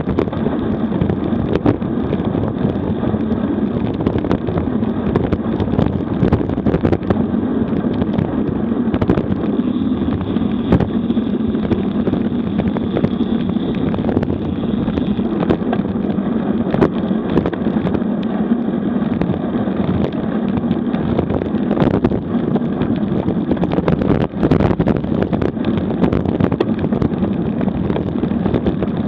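Wind rushing over the microphone of a camera riding on a road bike at speed, with the hum and rumble of the tyres on rough, cracked asphalt and frequent sharp knocks as the bike rolls over cracks and bumps.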